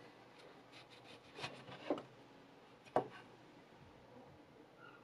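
A VG10 Damascus steel chef knife slicing through an orange, the blade knocking on the wooden cutting board three times, loudest about three seconds in.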